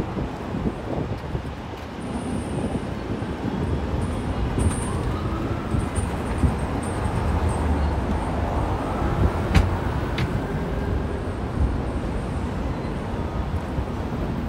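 City street traffic: a steady wash of passing vehicles with a low rumble that swells in the middle as a vehicle goes by, and a faint pitched whine rising and falling with it. Two sharp clicks come close together about two-thirds of the way through.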